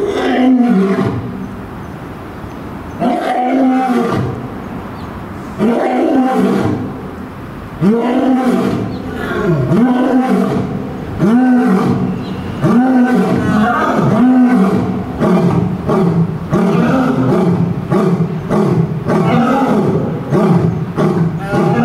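Male lion roaring a full bout. It opens with three long roars spread over the first six seconds, then moves into a series of shorter grunting roars about one every second and a half. In the second half these come faster and overlap.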